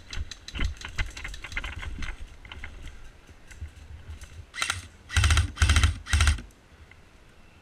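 Airsoft guns firing: a patter of rapid sharp clicks, then four short, loud bursts of fire a little past the middle.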